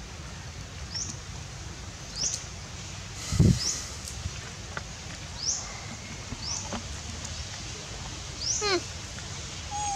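Animal calls: short, high chirps about once a second, with two quick runs of notes falling steeply in pitch near the end. A single dull low thump about three and a half seconds in is the loudest sound.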